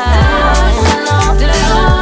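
Background R&B song with deep bass notes that slide down in pitch over a steady beat.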